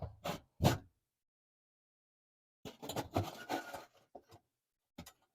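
Small handling sounds of a wire lead being screwed onto an oven bake element's terminal: a few short clicks and knocks near the start, about a second of scraping around three seconds in, and a couple of light clicks near the end.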